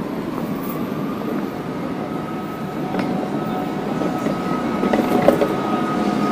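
Railway station concourse ambience: a steady low rumble with a thin, steady high whine that comes in near the start, a second, lower tone joining about halfway, and a few sharp clicks. The sound grows slightly louder toward the end.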